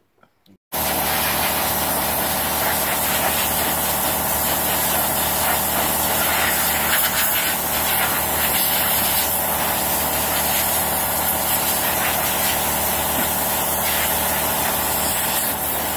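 Air blower with its motor running steadily under a loud rushing hiss, starting abruptly about a second in. It is blowing residual paper-towel bits off a freshly degreased 3D-printed car body part and drying it.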